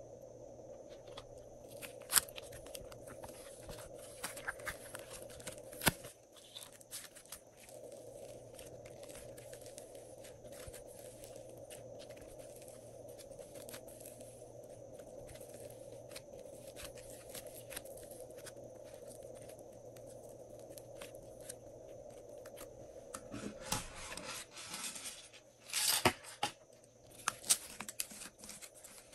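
Hands squeezing, kneading and pulling apart soft modelling clay, making small sticky tearing and crackling sounds with scattered sharp clicks. Near the end come several louder squishes.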